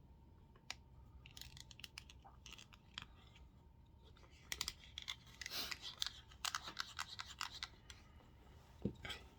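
Scratching and clicking handling noises from hands working with something on a bench. There are a few sharp clicks early on, and a dense run of scrapes and clicks in the middle.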